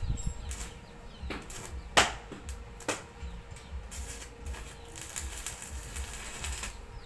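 Several sharp knocks, the loudest about two seconds in and another about a second later, then a stretch of hissing; birds chirp faintly.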